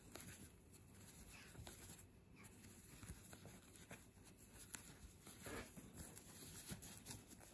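Near silence, with faint rustling and small scattered ticks from a steel crochet hook and yarn as single crochet stitches are worked.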